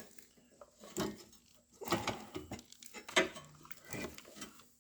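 Irregular metallic clinks and knocks of hand tools and car parts being handled, the sharpest about three seconds in.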